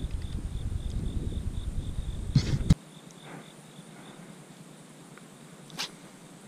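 Insects chirping outdoors in a pulsed high buzz, with wind rumbling on the microphone for the first couple of seconds. A few short knocks, the loudest just before the wind noise suddenly stops.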